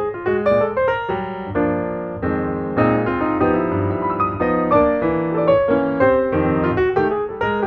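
Background piano music: a busy line of quick notes over chords.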